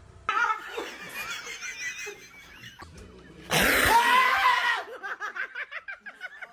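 People laughing in short repeated bursts, with a loud wordless cry about three and a half seconds in.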